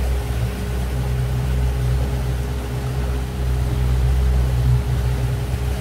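A small boat's motor running steadily at low speed, a constant low hum with a faint steady whine over it, with water and wind noise against the hull.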